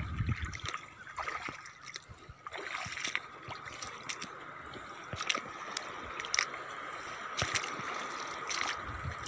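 Shallow seawater trickling and gurgling over a rocky reef flat, with scattered sharp clicks and small splashes and a faint steady high tone throughout.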